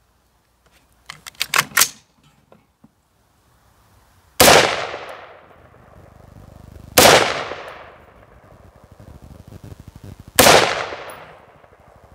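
AR-15 pistol firing three single shots a few seconds apart, each ringing out for about a second, the action cycling normally with an older Aero Precision bolt carrier group. A few sharp metallic clicks come about a second in, before the first shot.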